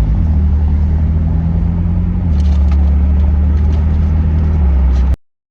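Steady low drone of a car's engine and road noise heard from inside the cabin, with a few faint clicks, cut off abruptly about five seconds in.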